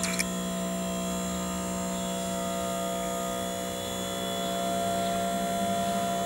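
Electric hydraulic pump motor of a self-propelled scissor lift running with a steady hum as the platform is raised.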